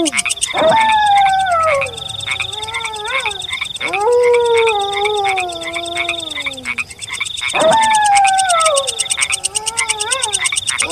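Three long wolf howls, each sweeping quickly up and then sliding slowly down in pitch: near the start, about four seconds in, and about seven and a half seconds in. Beneath them runs a dense, rapidly pulsing night chorus of frogs.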